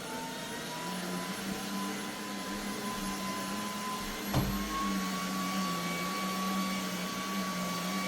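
Eureka React Sense cordless stick vacuum running in auto mode over a rug, a steady motor hum with a high whine. A single knock comes about four seconds in, after which the whine steps slightly higher and the motor gets a little louder.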